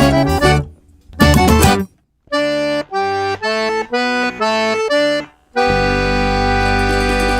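Forró accordion (sanfona) playing with the band. A fast run breaks off, a brief flourish follows, then about six short, detached chords, and near the end the bellows hold one long sustained chord.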